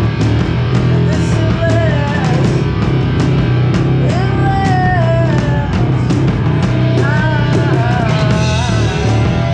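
A rock band playing loud, distorted electric guitar over bass and a drum kit, with held melody notes that bend up and down in pitch.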